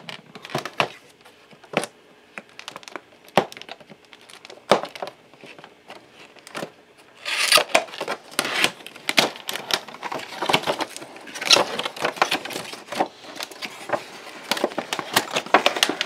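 Cardboard retail box being handled and opened by hand. A few scattered taps and rustles come first; from about seven seconds in there is dense crinkling and scraping of cardboard as the tab flap is worked open.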